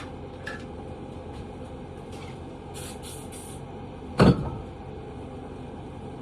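Pistol parts being handled during cleaning: a few light clicks, three short hisses close together about three seconds in, then one loud knock a little after four seconds as something is set down hard on the bench.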